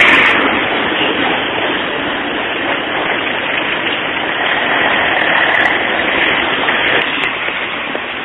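Street traffic: cars and a light truck driving past close by, heard as a steady rushing noise without clear engine tones, a little quieter near the end.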